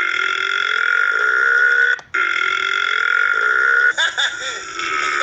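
Long, drawn-out human belches, one after another. Two steady ones of about two seconds each break off sharply, then a third from about four seconds in wavers in pitch.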